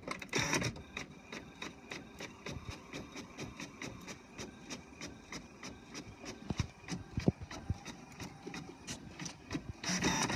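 HP Officejet 4500 inkjet printer printing a page: a steady run of regular clicks as the print carriage shuttles back and forth, with louder whirring passes near the start and near the end.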